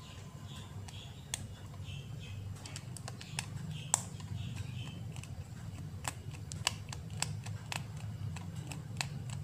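Small metallic clicks and ticks of a Phillips screwdriver working the tiny screws of a smartphone's internal cover plate, scattered unevenly, the sharpest about four seconds in, with faint scraping early on. A steady low hum runs underneath.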